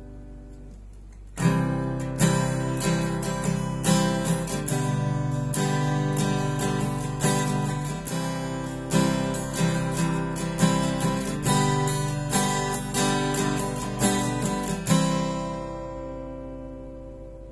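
Acoustic guitar with a sticker-covered body, chords played with a pick. Playing starts about a second in with repeated strokes and stops near the end, the last chord ringing out.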